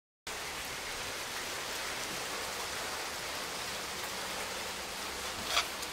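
Hailstorm: a steady hiss of hail and rain falling, with one sharper tick near the end.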